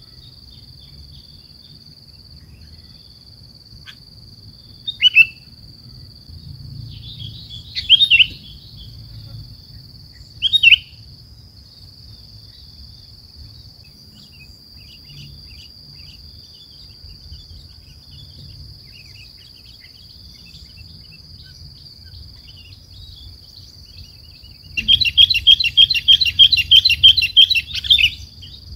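Sooty-headed bulbul (kutilang) calling: three short, loud calls a few seconds apart, then a fast, loud chattering run of notes near the end.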